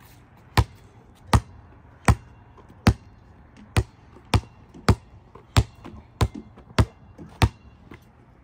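A basketball being dribbled on a concrete sidewalk: about eleven sharp bounces, a little more than one a second and slightly uneven, stopping near the end.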